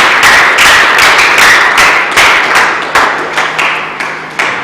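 Audience clapping in applause, the claps thinning out and growing quieter toward the end.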